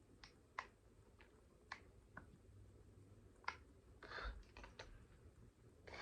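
Faint, scattered clicks and taps of a small plastic glue bottle being handled, with a broken pen stuck inside it, plus a brief soft rustle about four seconds in.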